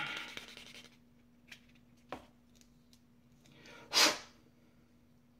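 A foam nail-buffing block scratching over a small plastic model part fades out within the first second, and a light knock follows about two seconds in. About four seconds in comes a single short, loud sneeze.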